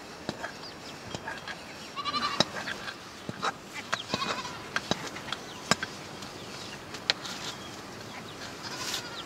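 Goats bleating, two short calls in the first half, over scattered sharp clicks and knocks.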